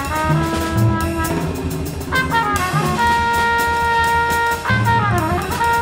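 Background music led by brass, with quick falling runs of notes and a long held chord in the middle.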